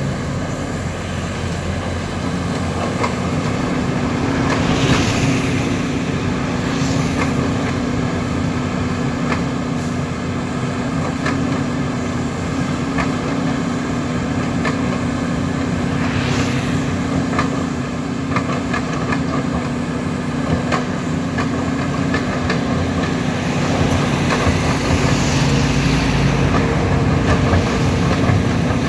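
Volvo EC210B LC excavator's diesel engine running steadily under working load while the arm and bucket dig and swing mud. Three brief swells of hiss rise over the engine, and a few short knocks are scattered through it.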